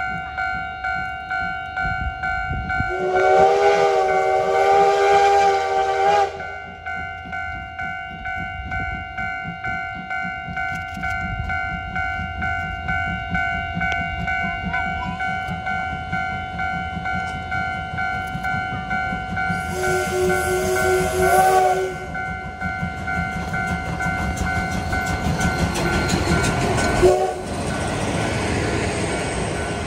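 Level-crossing warning bell dinging steadily in quick even pulses as a steam locomotive approaches and blows its chime whistle twice: a long blast about three seconds in and a shorter one about twenty seconds in. Near the end the locomotive rumbles past close by with a sharp bang, and the coaches roll through the crossing.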